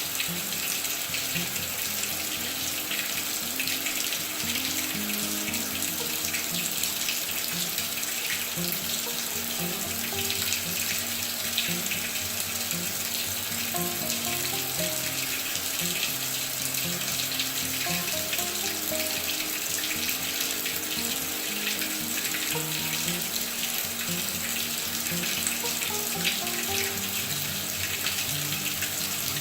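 Water running steadily into a top-load washing machine as it fills, with background music playing over it.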